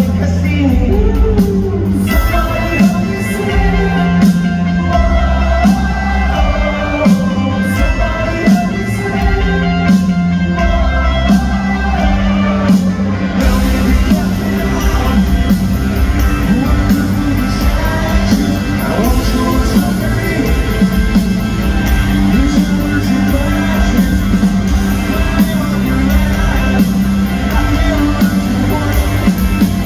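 Rock band playing live in an arena, heard from the crowd: guitars, bass and drums with a lead singer. The high end fills out about halfway through as the band plays harder.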